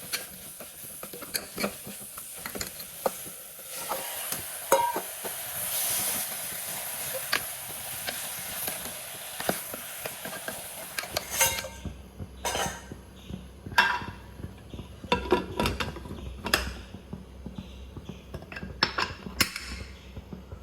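Onion-tomato masala sizzling in a pan as it is stirred, with a spoon clinking and scraping against the pan. About halfway through the sizzling stops, and clinks and knocks of utensils continue over a low hum.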